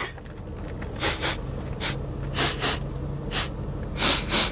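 A person sniffing into an open popcorn bag: about eight short sniffs, some in quick pairs.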